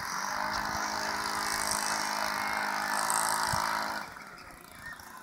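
A steady motor hum holding one pitch for about four seconds, then stopping abruptly.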